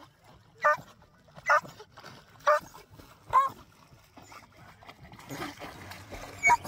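A dog giving four short, whining yelps, about one a second.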